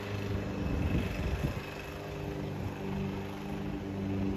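Diesel locomotive engine running steadily as a BNSF local freight approaches, a low drone.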